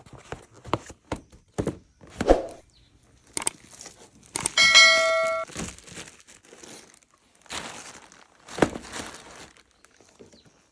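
Toys and packaging being unboxed: a run of knocks, taps and rustling, with a brief ringing chime about halfway through that cuts off suddenly.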